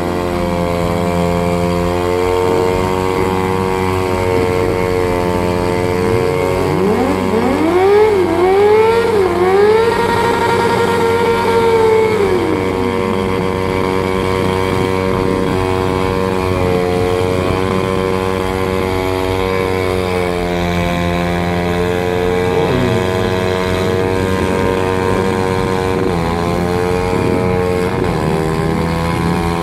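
Sport motorcycle engines held at high revs during burnouts, spinning their rear tyres. Between about 7 and 13 seconds in, one engine revs higher, wavers up and down and then drops back, while the other keeps running steadily.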